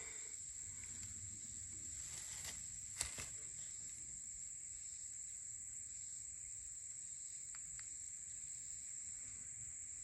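Steady high-pitched drone of insects, with a few faint clicks about two and a half and three seconds in, the one at three seconds the loudest.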